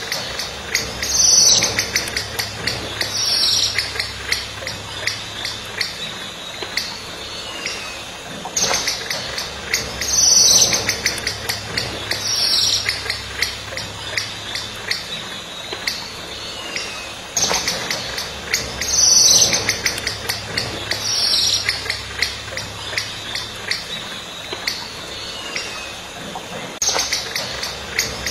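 Bird calls over fast, steady high chirping of insects. Two loud, falling calls about two seconds apart come round again with the same pattern about every nine seconds, as in a looped recording.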